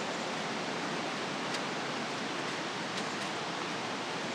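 Steady rushing of a waterfall's water, an even hiss with no change in level, with a couple of faint ticks.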